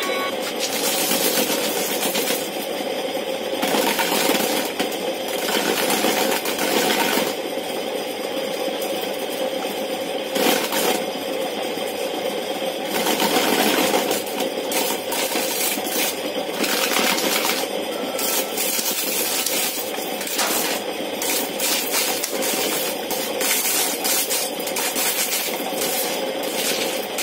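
Old homemade corn sheller: its motor-driven spinning disc hums steadily while corn cobs are pressed against it, stripping the kernels in repeated rasping, rattling bursts a second or two long as each cob is worked.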